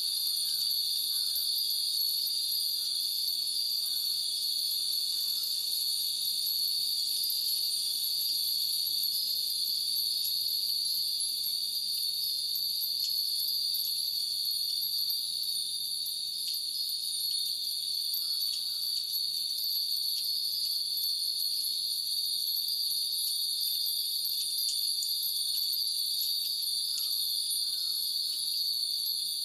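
Many Japanese furin wind bells tinkling lightly and irregularly in the breeze, over a steady, dense chorus of summer cicadas that is the loudest sound throughout.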